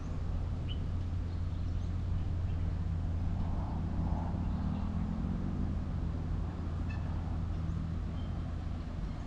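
Low, steady drone of an approaching diesel-electric locomotive (GEA 4530) still far off, with a faint rise and fall in pitch near the middle. A few short bird chirps sound over it.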